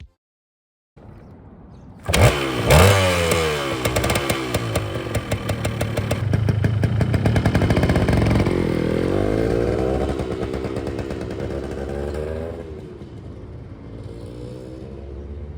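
A 1978 Yamaha DT175's two-stroke single-cylinder engine bursts into sound about two seconds in and revs up and down with a rapid crackling firing note. Near the end it settles to a quieter, steadier running.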